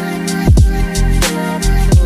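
Background music with a steady beat: deep bass hits that drop in pitch, crisp percussion and sustained synth tones.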